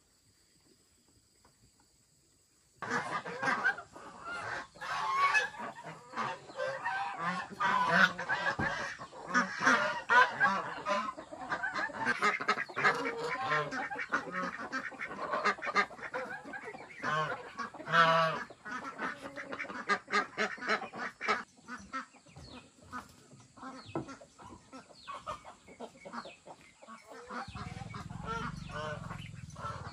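Geese honking, many calls overlapping, starting suddenly about three seconds in and thinning out in the last third.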